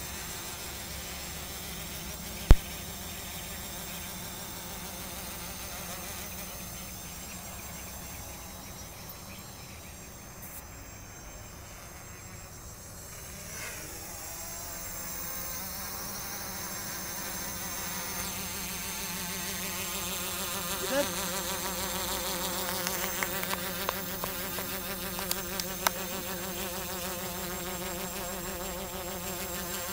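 Quadcopter's electric motors and propellers buzzing steadily in flight, the pitch sweeping up and down several times as it manoeuvres. A single sharp click about two and a half seconds in is the loudest sound, with a few faint ticks later on.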